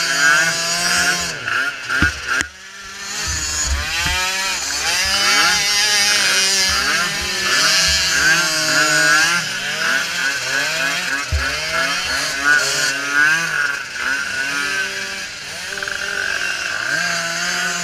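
Several small micro ATV engines racing, their pitch rising and falling over one another as they rev up and back off. The sound dips briefly a couple of seconds in, then builds again.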